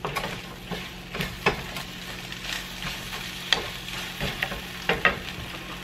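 A spatula stirring and scraping scrambled eggs with melting cheese around a frying pan, in short irregular strokes and taps, over the steady sizzle of the eggs cooking.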